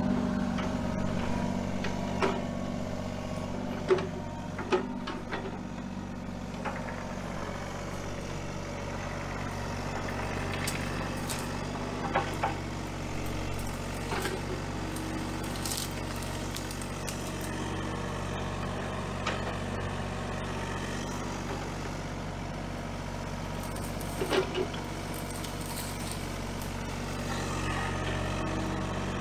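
Kubota mini excavator's diesel engine running steadily under work as the machine clears brush and saplings, with a few sharp knocks from the bucket working the brush.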